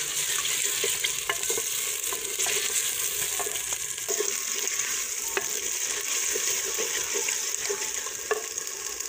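Chopped onions sizzling in hot ghee in a clay pot, stirred with a wooden spoon that scrapes and knocks lightly against the pot, giving small scattered clicks over a steady frying hiss.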